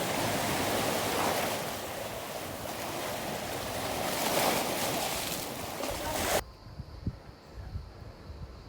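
Sea waves washing on the shore, a steady surf hiss that swells a little and then cuts off abruptly about three-quarters of the way through. After the cut, only faint wind on the microphone and a few soft low thumps.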